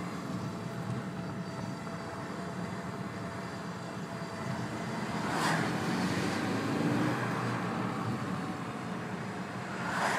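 2002 Saab 9-5 Aero on the move: road noise with a thin, steady whine that rises and falls in pitch with road speed. The owner traces it to the front driver-side wheel and suspects a failing wheel bearing, though it sounds to him more like straight-cut gear whine. Two brief louder whooshes come about halfway through and near the end.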